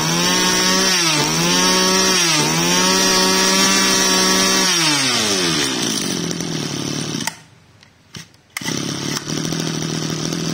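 Mitsubishi TL26 26cc two-stroke brush cutter engine revved up to high speed, dipping briefly twice, then falling back to a steady idle about five seconds in. The sound drops away for about a second near the seven-second mark, then the engine idles steadily again.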